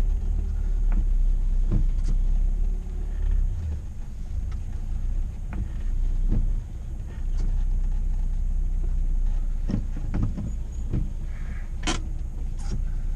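Toyota Sera's engine running with a steady low rumble, with scattered short clicks and a sharper click near the end. The driver's hard breathing after an autocross run is mixed in.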